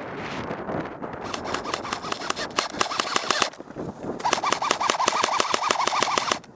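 Airsoft electric rifle (AEG) firing two long full-auto bursts: a rapid string of shots over the whine of its gearbox motor. The first burst starts about a second in; the second starts about four seconds in and cuts off sharply near the end.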